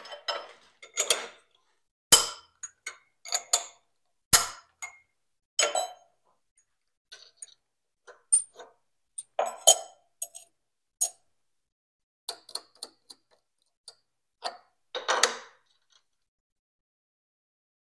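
Irregular metallic clinks and taps of a metal belt pulley, its nut and washer being taken off and handled by hand at a tool and cutter grinder's spindle, while swapping the spindle and motor pulleys for more spindle speed.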